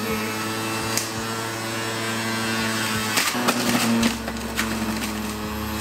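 Electric juicer motor running steadily, with sharp cracking as apple slices are pushed down the chute and shredded. The motor's pitch shifts briefly about three seconds in.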